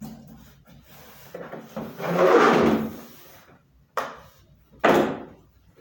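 A hard case being pulled out from the bottom of a wooden wardrobe: a loud scraping rub about two seconds in, then two sharp wooden knocks about a second apart.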